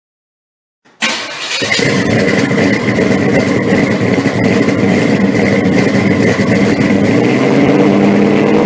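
Car engine running loudly and steadily, cutting in suddenly about a second in.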